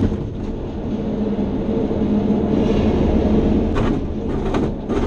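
SGS 1-26E glider's single main wheel rolling along the paved runway during the landing rollout: a steady rumble with the airframe rattling, and a few knocks near the end.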